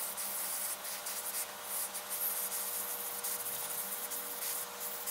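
Handheld heat gun running, a steady rush of air with a faint motor whine, blowing hot air onto fluxed battery connector terminals to clean off corrosion.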